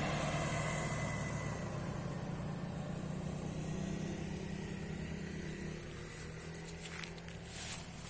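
Engine of a homemade circular sawmill running steadily at a low speed, with a few short knocks near the end.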